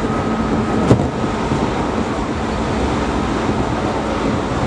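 Steady running noise of a moving train heard from inside the carriage: a continuous rumble with a steady hum, and one sharp knock about a second in.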